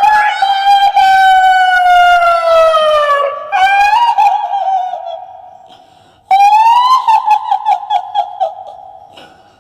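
High, shrill female voice doing a kuntilanak ghost: a long wail that slowly falls in pitch, a shorter cry that wavers and fades, then a rising cry that breaks into a rapid, choppy cackle.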